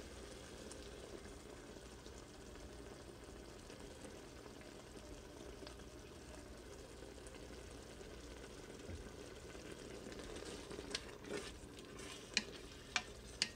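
Tomato-based sloppy joe sauce sizzling and bubbling faintly in the hot stainless steel inner pot of an Instant Pot. From about ten seconds in, a spoon stirs and scrapes against the pot with a few sharp clicks.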